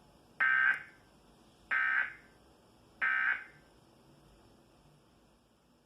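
Emergency Alert System end-of-message signal: three short bursts of SAME digital data tones, a little over a second apart, marking the end of the alert.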